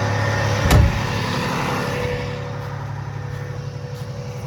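Tractor engine running steadily with a low hum, with one sharp knock a little under a second in. The engine sound eases off about two seconds in, as if the tractor is slowing.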